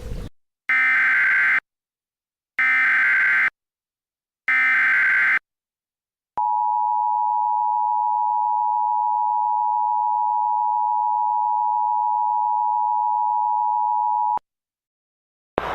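Emergency Alert System header: three short bursts of SAME data tones, about a second each, followed by the steady EAS attention tone held for about eight seconds and cutting off suddenly. It signals that an emergency message follows.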